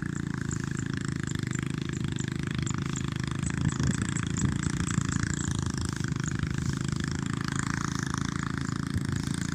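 Rice threshing machine running steadily: an engine hum with a dense, continuous rattle over it, a little louder around the middle.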